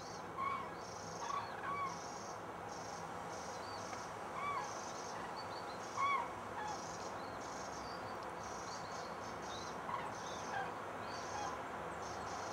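A flock of cranes calling as they fly over in formation: scattered trumpeting calls, one every second or so, over a steady hiss.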